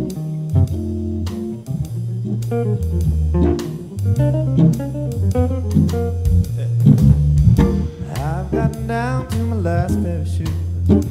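Jazz-blues organ trio playing an instrumental passage: organ holding low bass notes and chords, guitar lines over it, and a drum kit with cymbals keeping time.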